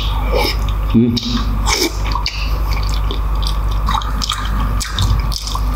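Close-miked wet chewing and squelching as a man eats sauce-coated beef oxtail and tripe by hand, scattered smacks and squishes over a steady low hum.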